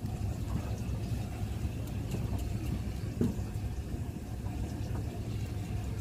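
Fishing boat's engine idling with a steady low rumble.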